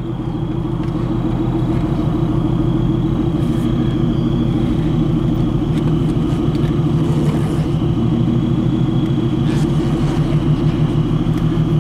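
Supercharged 3.5-litre V6 of a 2001 Plymouth Prowler, with headers and modified exhaust, running steadily at low speed, heard from inside the cabin.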